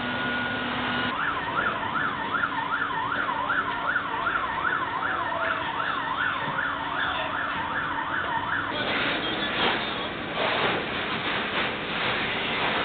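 Emergency-vehicle siren in a fast up-and-down yelp, about three cycles a second, starting about a second in and cutting off near two-thirds of the way through. After it comes a rushing noise with irregular bursts.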